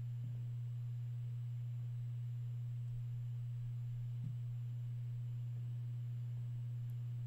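Steady low electrical hum on the recording, one unbroken low tone with nothing else heard over it.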